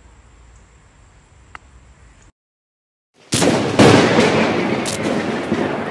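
Faint outdoor ambience, then a second of dead silence, then a sudden loud explosion-like blast sound effect with a rumbling rush and two further hits, opening an animated logo sting.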